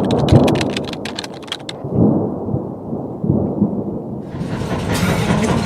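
Deep rumbling noise that swells and fades several times, opening with a rapid run of sharp crackles; a steady hiss like rain comes in a little past the middle.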